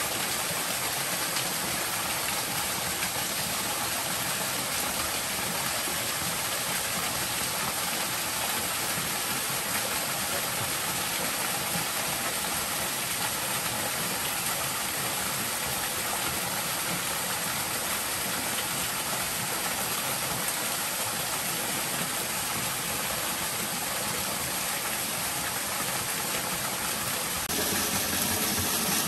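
Small waterfall splashing over rocks into a forest stream: a steady rush of water, a little louder near the end.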